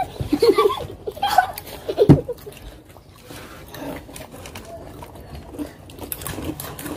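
Several children's voices in short bits and giggles, with a sharp knock about two seconds in; after that it goes much quieter, with only faint scattered sounds.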